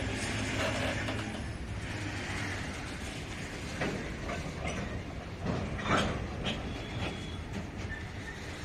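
Covered goods wagons of a freight train rolling past at close range: a steady rumble of steel wheels on the rails, with several sharp clanks between about four and six and a half seconds in, the loudest near six seconds.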